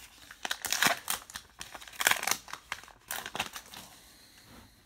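Crinkling and rustling of a baseball card pack wrapper being torn open and handled, in three short swishes that die away after about three and a half seconds.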